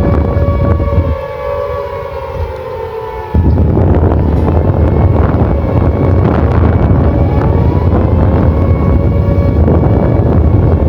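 Emergency alarm siren sounding over heavy low rumble and wind-like noise. Its pitch slides down from about one to three seconds in while the rumble drops away. Then the rumble and a steady siren tone come back suddenly, with a rising sweep a few seconds later.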